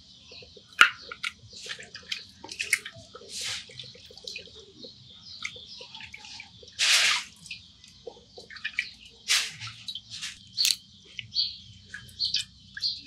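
Water splashing and dripping in a steel bowl as raw beef chunks are rinsed by hand and lifted out, in short irregular splashes with one longer splash about halfway through. Birds chirp in the background.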